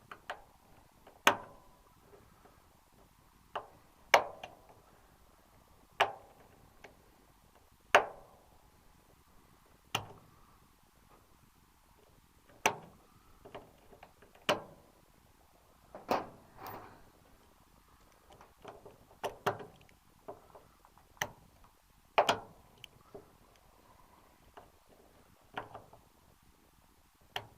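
Sharp metal-on-metal taps with a short ring, coming irregularly about every one to two seconds, from a tool working the edge of a snapped-off screw stub.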